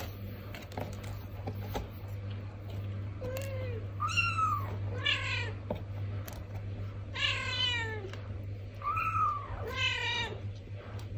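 Traditional Siamese (Thai) kitten and its mother cat meowing back and forth: about six short meows that fall in pitch, some high and thin, others lower and fuller. Faint scratching in cat litter comes before the first meow.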